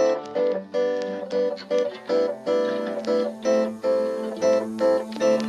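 Background music: plucked acoustic guitar strumming in a steady rhythm.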